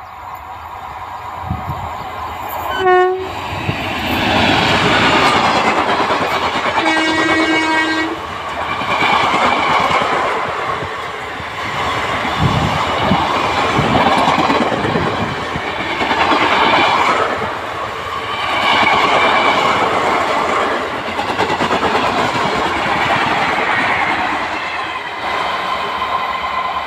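Indian Railways WAP-4 electric locomotive sounds its horn as it approaches at speed: a short toot about three seconds in, then a longer blast about seven seconds in. Then its train of ICF coaches rushes past with a rhythmic clatter of wheels over rail joints that swells and dips.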